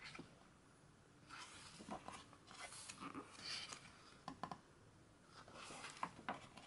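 Faint paper swishes and rustles from the pages of a large hardcover photobook being turned by hand, with a few light clicks as the pages are handled.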